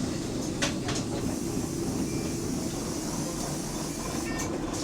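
Inside a bus under way: steady low engine and road rumble with light rattles, a couple of sharp clicks, and a high hiss coming in about a second and a half in.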